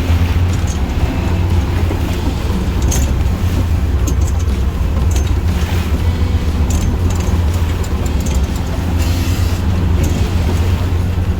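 Boat engine running steadily under way, a continuous low drone, with scattered small clicks and knocks on deck.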